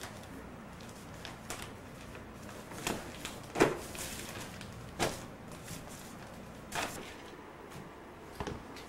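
Handling noise from newspapers and small objects being moved on a table: a few separate knocks and clunks, the loudest about three and a half seconds in.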